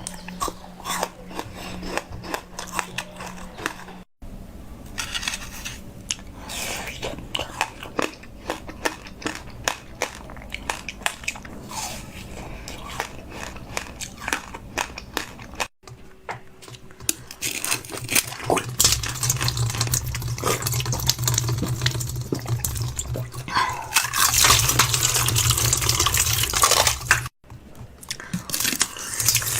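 Close-up eating sounds: crunching and smacking bites with wet, liquid sounds, broken into several short clips; a louder, rushing liquid-like stretch runs through the latter part.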